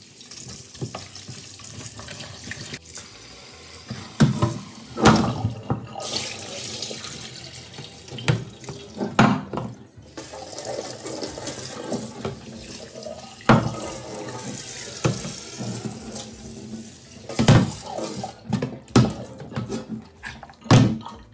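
Kitchen tap running into a stainless steel sink as goat meat is rinsed in a pot, the water splashing over the meat. About seven sharp knocks and clatters come through the running water as the pot and meat are handled. Near the end the pot is tipped and the rinse water poured out.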